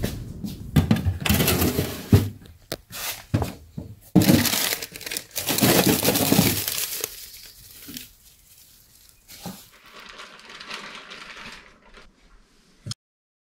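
Irregular rustling and crinkling with sharp knocks, from gear being handled close to the microphone. Loudest in the first half, fainter later, ending in a click and cutting off abruptly near the end.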